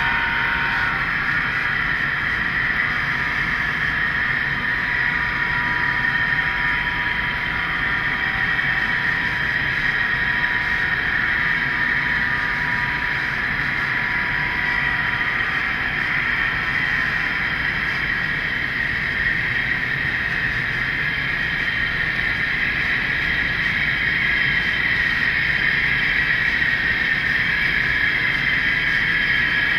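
Model train running along the layout track: two model diesel locomotives and their cars make a steady whirring hiss with a high running tone.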